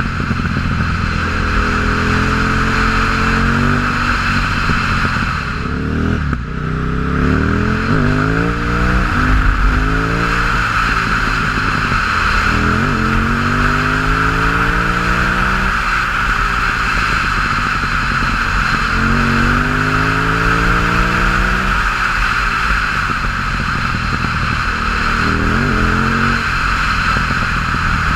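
KTM 950 Supermoto's V-twin engine through an open MIVV exhaust with no dB-killer, accelerating hard: the revs climb and drop back several times as it shifts up through the gears.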